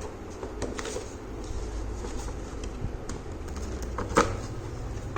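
Cardboard box and packaging being handled: scattered small clicks and rustles, with one sharper knock about four seconds in.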